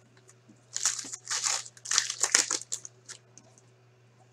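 Foil hockey card pack wrappers crinkling and tearing as packs are handled and opened, in a few rustling bursts that start just under a second in and die away about three seconds in.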